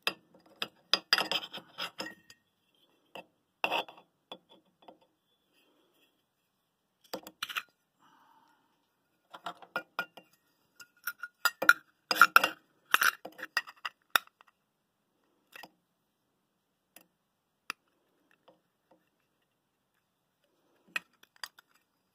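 Stainless steel container lids and cylinders clinking and knocking together as they are handled, in irregular clusters of light metallic clinks with brief ringing, busiest in the middle and sparse near the end.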